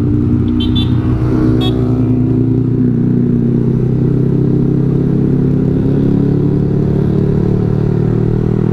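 Motorcycle engine running steadily, its pitch sagging slightly through the middle and coming back up. Two brief high chirps sound in the first two seconds.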